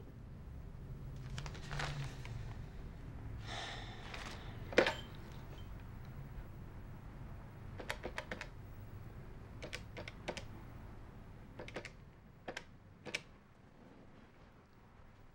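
Push-button desk telephone being handled: a brief rustle, then a sharp clunk as the handset comes off the cradle about five seconds in. After that come runs of small plastic clicks in quick groups of two or three.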